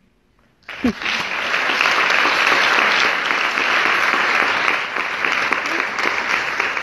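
A brief hush, then audience applause breaks out suddenly under a second in and carries on steadily.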